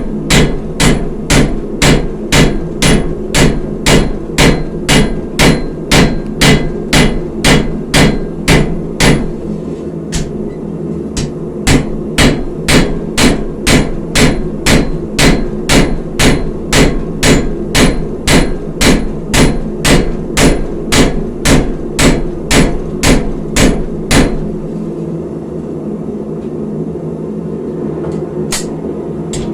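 Forging hammer blows on an anvil, struck in a steady rhythm of about two a second. They pause briefly about a third of the way in, then stop, with one last blow near the end. A steady low hum runs underneath.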